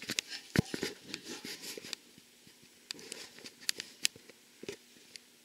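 Scattered clicks, light knocks and rustling, busiest in the first two seconds with one firmer knock about half a second in, then only a few faint clicks: handling noise as the camera is moved down under the radiator.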